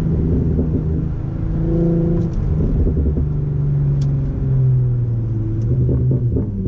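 2004 Infiniti G35 coupe's 3.5-litre V6 engine heard from inside the cabin while driving, its steady note dropping in pitch about halfway through as the car eases off.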